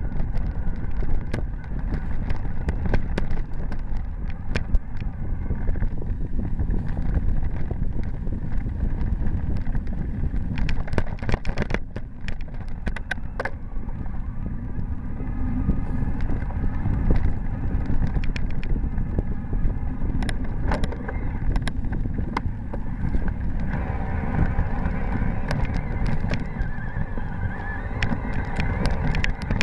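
Wind rumbling on a bike-mounted camera's microphone while a mountain bike rolls over a dirt and gravel trail, with frequent sharp rattles and knocks from the bike and camera mount jolting over bumps.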